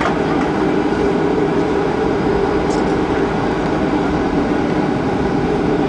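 Steady cabin noise of a jet airliner moving along the runway after landing: engines running with the rumble of the wheels rolling, heard from inside the passenger cabin.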